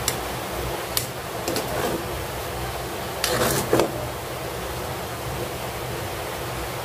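A spatula scraping and knocking against the pan as vermicelli is stirred, over a steady hiss: a few short scrapes in the first two seconds and a longer, louder bout about three and a half seconds in.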